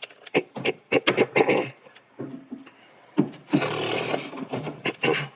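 Household objects being handled indoors: a quick run of knocks and clatters, then a scrape lasting under a second about three and a half seconds in, and a couple more knocks near the end.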